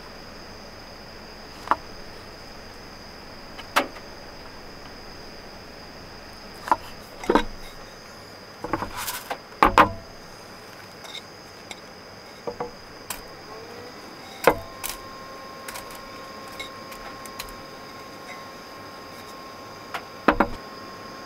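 Food-preparation handling: a couple of sharp knife taps on a wooden cutting board as shiitake mushrooms are sliced, then a run of clatters and knocks as the pieces are tipped from a bowl onto rice in a rice-cooker pan, and a knock twice more as the bowl is handled and set down. A faint steady high whine lies underneath.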